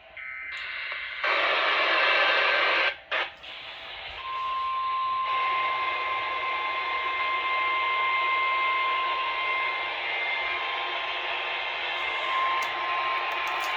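NOAA Weather Radio broadcast heard through heavy static. A loud burst of hiss comes about a second in, then a single steady tone starts about four seconds in and holds to the end.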